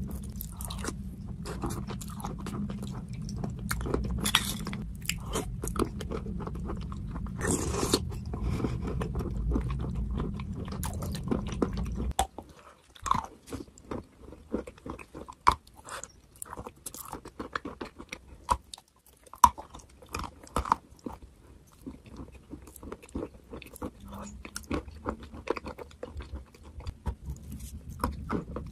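Close-miked eating sounds: wet, crackly mouth sounds of eating a creamy clay paste off a spoon over a low steady hum. About twelve seconds in, the hum drops away and sharp, separate crunches follow as a hard white chunk of chalky clay coated in the paste is bitten and chewed.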